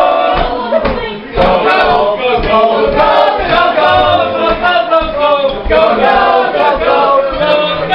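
A choir singing loudly together, unaccompanied, with low thuds repeating under the voices and a brief break in the singing about a second in.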